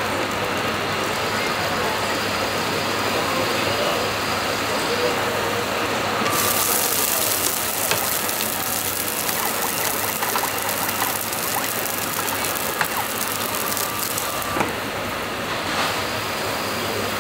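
Automatic fried rice machine cooking egg fried rice: a steady mechanical hum and clatter, then about six seconds in a loud frying sizzle with scattered clicks and scrapes in the pan that runs for about eight seconds and stops sharply.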